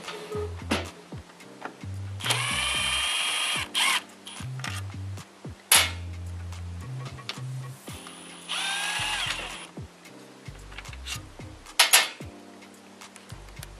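Cordless driver spinning out the 10 mm throttle-body bolts on an M62TU intake manifold, in two runs of about a second and a half each with a steady motor whine, the first about two seconds in and the second about eight seconds in. Light clicks of handling and bolts come between the runs, over background music.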